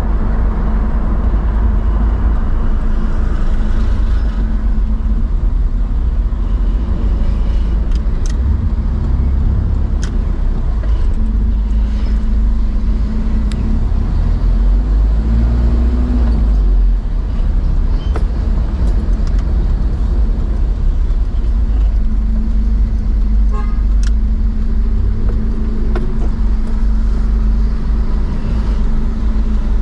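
Car driving along a town street: a steady low engine and road rumble with a constant hum, and a few brief faint clicks.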